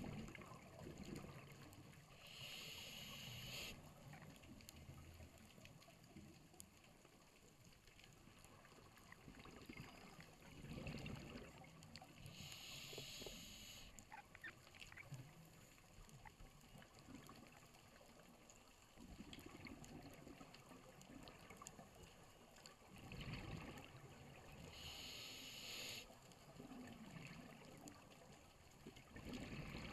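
Faint scuba breathing through a regulator underwater: three inhalations heard as short hisses, about every ten to twelve seconds, with low rumbling gurgles of exhaled bubbles between them.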